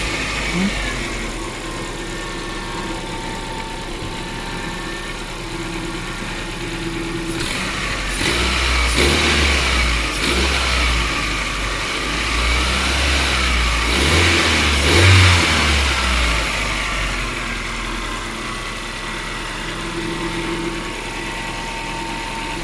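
Car engine idling, then revved up for several seconds from about 8 to 16 s before settling back to idle. This is during a fuel pressure test on a hard-starting car whose fuel pump is not holding pressure.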